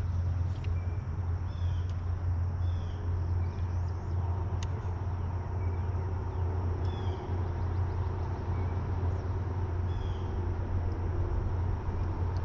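A bird calling a short repeated note about every second and a half, over a steady low rumble.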